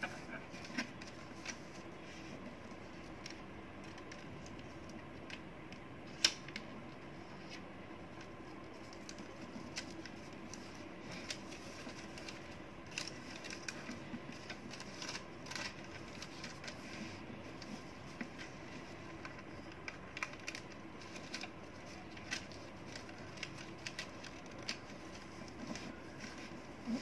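Origami paper being folded and creased by hand on a tabletop: scattered short crinkles and taps of the paper over a steady faint room hum, with one sharper tick about six seconds in.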